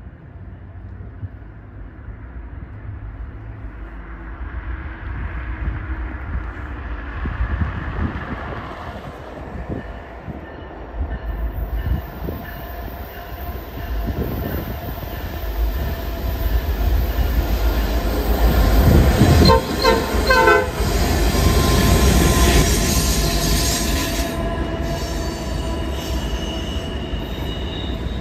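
Norfolk Southern westbound intermodal train led by an EMD SD70ACe with GE units behind, approaching and growing louder as the diesel locomotives run past. The lead locomotive's air horn sounds in short broken blasts about two-thirds of the way in, and steady wheel squeal from the curve carries on toward the end.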